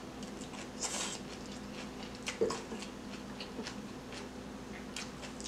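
Chewing and slurping of fried instant ramen noodles, with soft mouth sounds and a few small clicks, over a faint steady hum.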